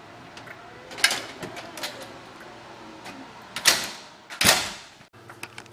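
A commercial door swinging shut under its overhead door closer: a click about a second in, then two loud clunks as the door comes home and latches, the second ringing out before the sound cuts off abruptly.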